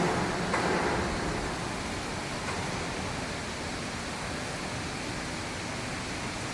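Steady, even background noise with no distinct tone or rhythm.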